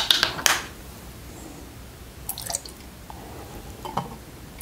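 A thin trickle of water poured from a small glass jar into a clear plastic fermentation airlock, filling its water seal. Sharp clicks near the start as the airlock is pressed into the jar lid, and a few more clicks of glass and plastic handled.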